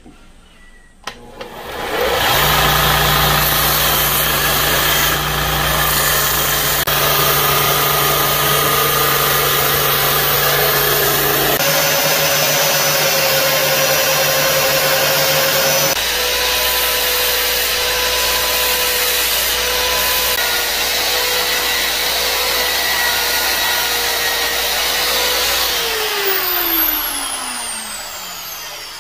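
Electric shop machine running steadily under load: a belt grinder sanding a wooden knife handle, with the sound changing abruptly twice where clips are joined. Near the end a motor spins down, its whine falling steadily in pitch.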